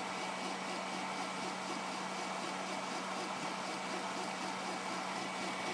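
Bukobot 3D printer running a fast print: its stepper motors whir in a quick, busy flutter as the print head darts over the bed, over a steady hum.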